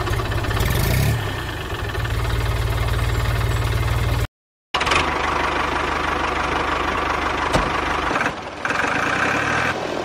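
Tractor engine running steadily with a knocking beat, cutting out completely for under half a second a little before the middle.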